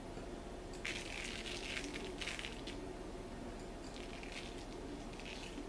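Chopped pistachios scattered by hand onto buttered filo pastry: a faint soft patter and rustle in a few short spells.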